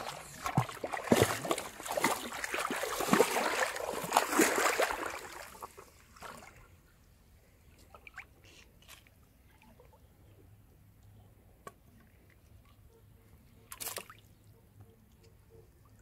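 Shallow river water sloshing and splashing around legs wading in, loud and busy for the first six seconds. It then quietens to small drips and trickles, with one brief splash near the end.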